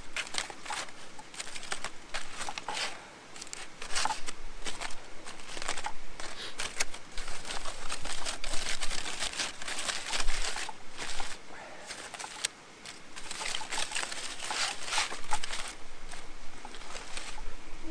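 Aluminium foil crinkling and tearing in irregular handfuls as a foil parcel of vegetables roasted on a campfire is opened.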